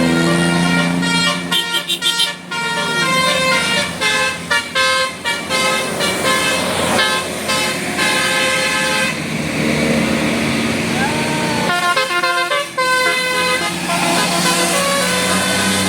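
A bus's 'telolet basuri' multi-tone musical horn playing a quick melody of short stepped notes. A steady low horn tone sounds underneath at the start, again around the middle, and near the end.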